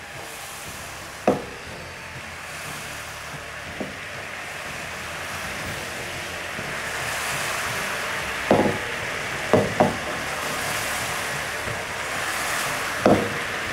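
Sugar syrup bubbling and sizzling in a frying pan over a gas burner as it starts to caramelise, a steady hiss that slowly grows louder. Short knocks of the pan against the burner grate as it is swirled: one about a second in, three close together past the halfway mark, and one near the end.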